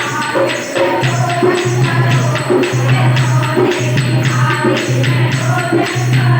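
Languriya folk devotional song: singing over a fast, even percussion beat with jingling, tambourine-like accompaniment.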